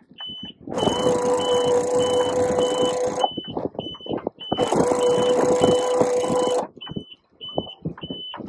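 Hydraulic pump of an in-boom mainsail furling system running steadily in two spells of about two seconds each, hoisting and tensioning the mainsail. A rapid, steady high electronic beeping repeats throughout.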